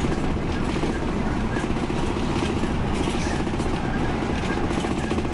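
Steady low engine and road rumble of a moving coach bus, heard from inside the cabin near the front.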